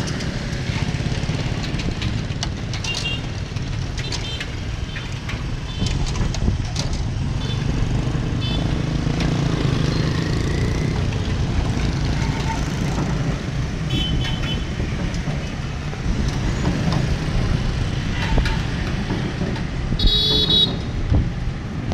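Motorbike street traffic running past as a steady low rumble, with short horn beeps scattered through it and a longer, louder horn toot near the end.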